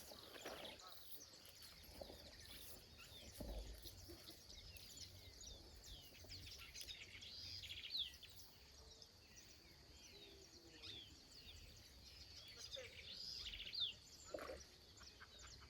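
Quiet outdoor ambience with scattered bird chirps and short calls over a steady high-pitched drone and a faint low rumble.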